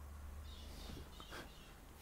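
Faint handling sounds from nitrile-gloved hands working on a smartphone: soft rustling and a few small clicks, over a steady low electrical hum.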